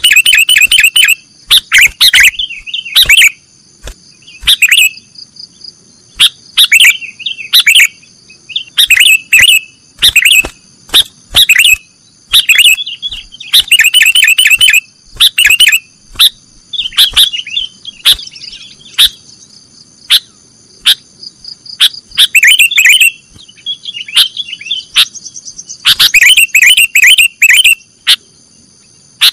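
Sooty-headed bulbul (kutilang) song: loud, rapid bursts of chirping notes repeated every second or two with short pauses between, over a steady high-pitched whine.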